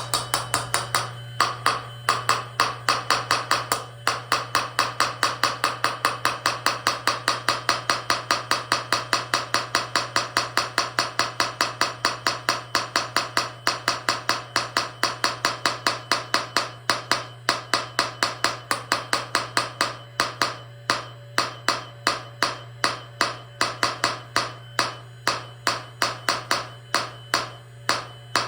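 Lesu scale-model hydraulic breaker hammer chattering against a thin flat rock, a rapid even train of sharp strikes at about four to five a second that slows to about two a second in the last third, over a steady low hum. The rock is not breaking as easily as expected.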